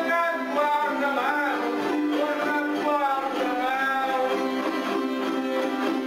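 Despique folk music: a man singing a drawn-out vocal line over a strummed acoustic guitar and a smaller guitar.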